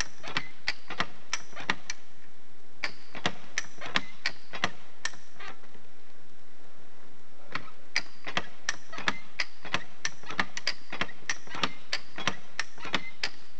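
Trewhella monkey grubber hand winch clicking as its lever is pumped back and forth, sharp clicks about three a second. The clicking stops for about two seconds midway, then picks up again.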